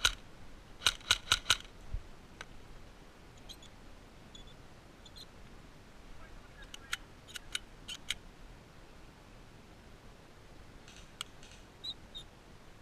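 Airsoft guns firing single shots as sharp cracks: a quick string of four about a second in, then a lone shot, a volley of about five near the middle, and fainter, more distant shots near the end.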